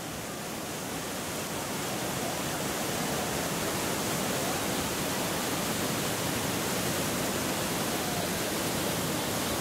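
Iguazu Falls pouring: a steady, dense rush of heavy falling water, growing a little louder over the first few seconds, then holding even.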